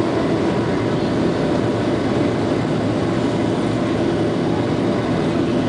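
A jet airliner's turbofan engines running with a steady, loud rumble, heard inside the passenger cabin as the plane moves along the runway.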